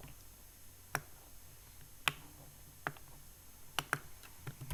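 Computer mouse buttons clicking: about half a dozen single sharp clicks at irregular intervals, roughly a second apart, with a quick pair near the end.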